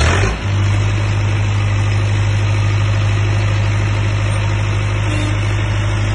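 30 kVA diesel generator set just started on its self-starter: the engine catches in the first half-second, then settles to a steady run with a strong, even low drone.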